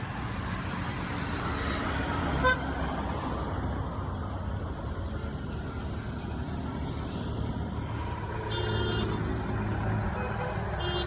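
Motor vehicle running with a steady low rumble and road noise, with a short horn toot about two and a half seconds in.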